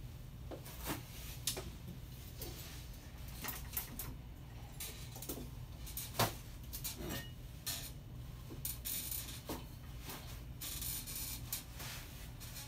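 Scattered light clicks, creaks and rustles of a folding rocker chair's frame and the sitter's clothing as a man shifts and rocks in it, over a low steady hum.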